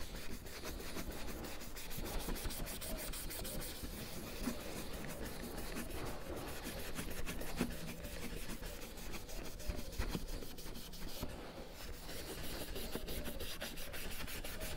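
Medium-grade Scotch-Brite pad scrubbed over a wheel trim, a steady rubbing. The pad is taking the dirt and shine off the trim so that new paint will stick.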